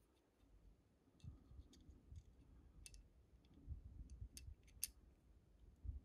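Faint, scattered clicks and taps of small machined metal cone knobs being handled and set against a metal replica lightsaber hilt, with soft low bumps of fingers handling the parts.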